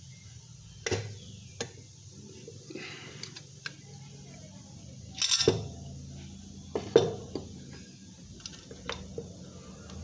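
Pressed-steel parts of a dismantled washing machine spin motor handled and set down on a wooden bench: scattered metallic clinks and knocks, the loudest about five seconds in and again about seven seconds in, over a low steady hum.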